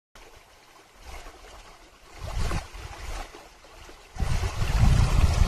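Wind buffeting the microphone of a camera riding in a moving Jeep: a low, gusty rumble that comes in suddenly, swells briefly midway, and grows much louder about four seconds in.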